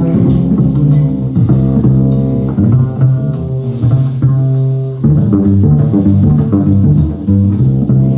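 Music with a prominent plucked bass line, its notes changing steadily, along with guitar.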